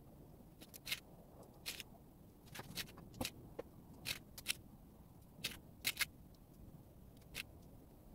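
Small, sharp clicks and ticks at irregular intervals, about a dozen, as lead pellets are pressed into the holes of the pellet pistol's 21-round rotary magazine and the magazine is turned round.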